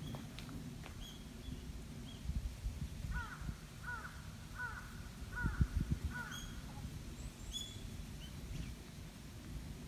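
A crow cawing five times in quick succession, about two-thirds of a second apart, with thin high chirps of small birds around it and a low rumble underneath.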